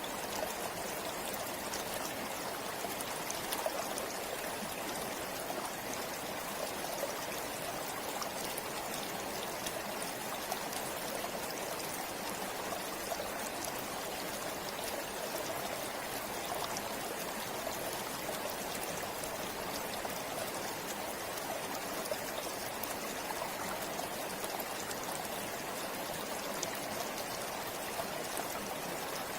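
Flowing river water rushing and trickling steadily over stones, a continuous even babble with small splashes throughout.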